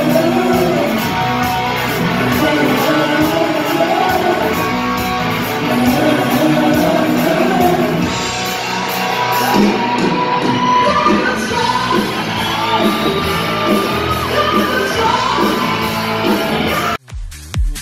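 Live rock music with singing and shouting, echoing in a large hall. About a second before the end it cuts off abruptly and electronic dance music with a steady, heavy beat takes over.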